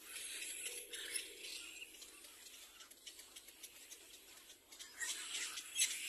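Little black cormorant chicks in the nest giving raspy, rattling begging calls in bursts, near the start and again near the end.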